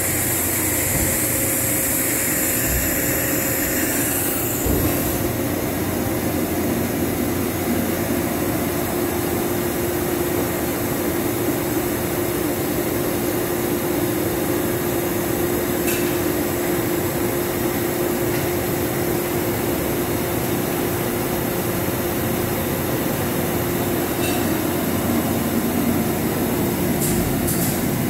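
Steady mechanical hum and whir from a Doosan HP 4000 II horizontal machining center with its equipment running, carrying a steady low drone; a high hiss drops away about four seconds in.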